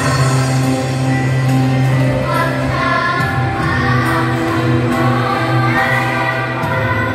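Children's choir singing with a held low accompaniment note underneath; the voices grow stronger about two seconds in.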